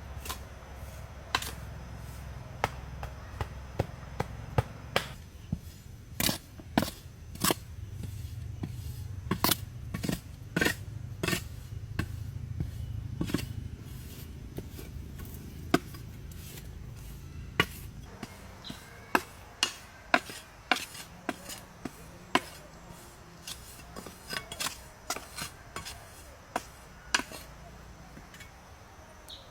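Irregular sharp knocks and taps, some strokes close together and others a few seconds apart, over a low rumble that fades out about halfway through.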